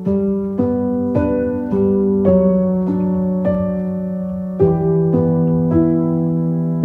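Gentle instrumental background music: a slow melody of single notes, a new note about every half second to second, over a held low note.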